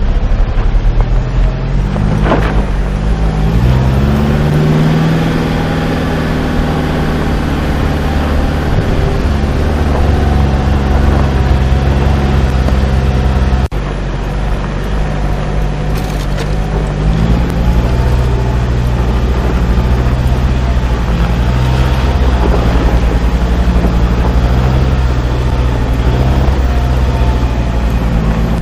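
A 4x4's engine running at low revs while driving an off-road trail, its note stepping up and down with the throttle. The sound breaks off briefly about fourteen seconds in.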